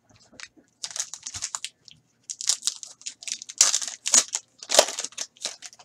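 A foil hockey card pack being torn open by hand. The wrapper crinkles and rips in a run of short crackling bursts, and they are loudest in the second half.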